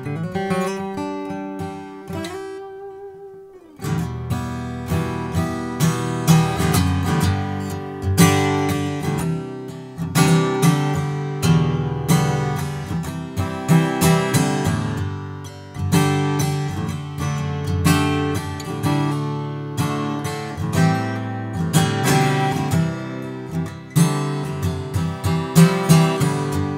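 Gibson J-45 Standard slope-shoulder dreadnought acoustic guitar (solid mahogany back and sides, Sitka spruce top) strummed and picked in a rhythmic chord pattern. A chord is left to ring and fade about two seconds in, then the strumming resumes about four seconds in.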